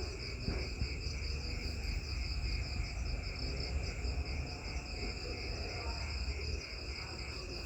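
Steady, rapidly pulsing high-pitched trilling of insects, over a low rumble.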